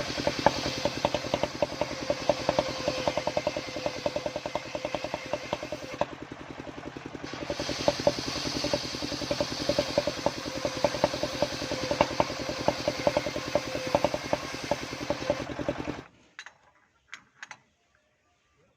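Engine driving a home-built circular saw running steadily with a fast, even beat. It stops abruptly about sixteen seconds in, leaving near quiet with a few faint clicks.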